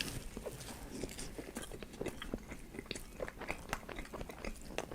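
Close-miked chewing: a person biting and chewing food, with irregular small wet clicks and crunches.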